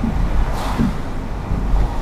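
Steady low road rumble of a car driving on a wet road, heard from inside the car, with the hiss of an oncoming car's tyres on the wet pavement swelling and fading about half a second in.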